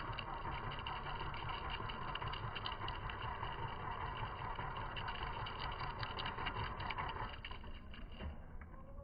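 A motor running steadily with light crackling, easing off a little near the end.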